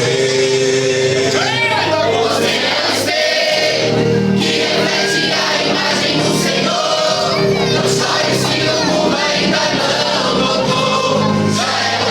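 Gospel worship song played by a band with singing. Pitch lines bend over held chords, with sharp strokes at a steady beat.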